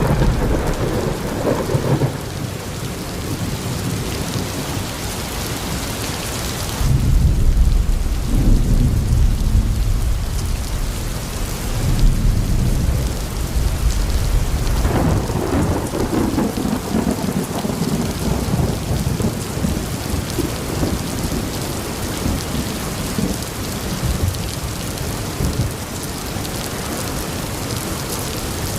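Steady heavy rain falling, with thunder rumbling: a long low roll starts about seven seconds in, and another swells around twelve to seventeen seconds in.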